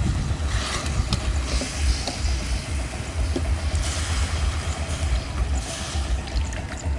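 Fish and curry paste stirred and scraped in a metal wok, then water poured in about four seconds in, giving short bursts of hiss and splashing over a steady low rumble.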